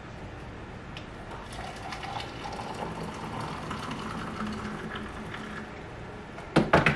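Hot water poured from an electric kettle into a ceramic mug, the pitch of the stream rising slightly as the mug fills. Near the end come a few sharp, loud knocks as the kettle is set back down.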